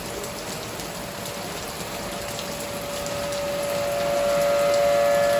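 Steady rain falling, with a tornado warning siren's steady wail swelling in loudness from about halfway through.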